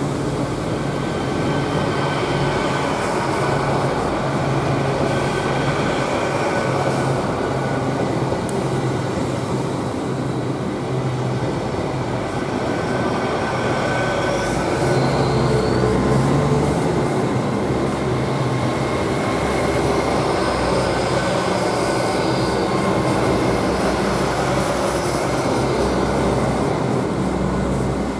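Class 800 'Azuma' bi-mode train passing slowly under diesel power, a steady hum of its underfloor engines and running gear. There are a few brief high-pitched wheel squeals partway through.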